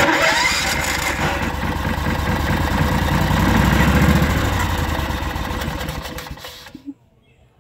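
18 hp Honda engine of a Club Car golf cart starting abruptly and running for several seconds. It grows louder, then loses power and dies, the fault by which it will not stay running.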